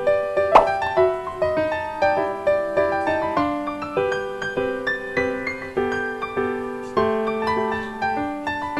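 Background piano music: a gentle run of struck notes and chords, several a second, each fading away. A short sharp click comes about half a second in.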